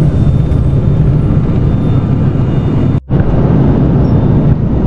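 Steady, loud engine and airflow noise inside a turboprop airliner's cabin in flight, with a momentary dropout about three seconds in.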